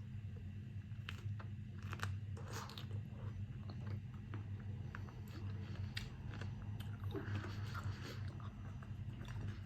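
A person chewing and biting food, with scattered small crunches and clicks, over a steady low hum.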